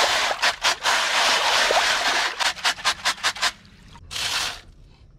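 Gravel being washed in a stainless-steel classifier screen shaken in a tub of water: steady splashing and sloshing, then a quick run of short sloshes and gravel rattles about halfway through as the screen is worked up out of the water. A short final burst follows near the end.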